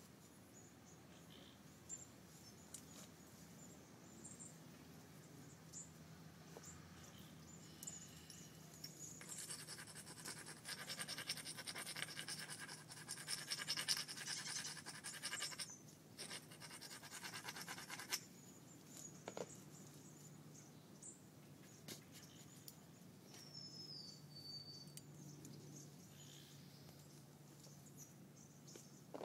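Scraping and scratching of hand tools on a piece of green sheen obsidian during knapping. A dense run of rapid strokes starts about nine seconds in and lasts about nine seconds, with scattered small clicks before and after.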